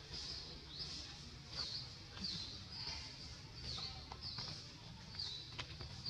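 A high-pitched chirping call repeats steadily, one to two chirps a second, over a low outdoor rumble.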